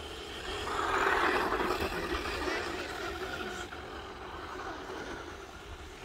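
A vehicle passing on the road: a swell of rushing noise about a second in that fades away over the next few seconds.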